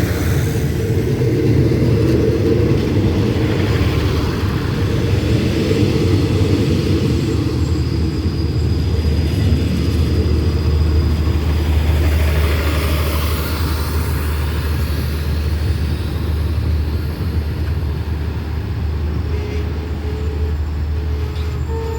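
Hitachi diesel-electric locomotive running with a loud, steady low rumble as it hauls an express train, easing a little in the second half.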